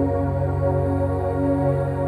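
Calm ambient background music with long held chords.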